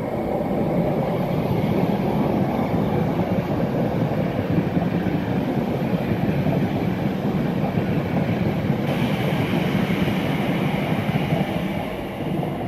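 Multiple-unit passenger train passing close by: a steady rumble of wheels on rail that swells as it arrives, brightens with a hiss about nine seconds in, and drops away near the end as the last carriage goes past.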